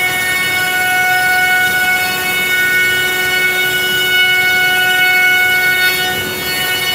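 Masterwood Project 300 V2 CNC router running, giving a steady high-pitched whine with several overtones over a machine noise.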